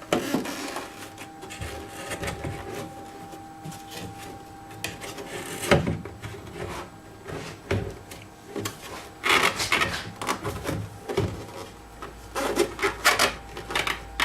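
Irregular rubbing, scraping and knocking of car body parts being handled and fitted by hand, with one sharp knock about six seconds in and a busier run of clicks and scrapes in the last five seconds.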